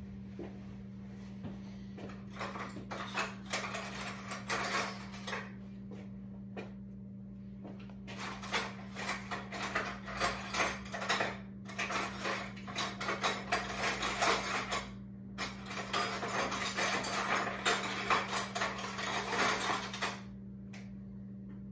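Kitchen clatter: dishes and utensils rattling and clinking as things are handled at a counter, in several stretches a few seconds long with short pauses between, over a steady low appliance hum.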